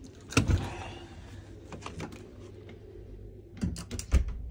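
Small objects being handled: a knock about half a second in, a few light taps, then a quick run of sharp clicks and knocks near the end.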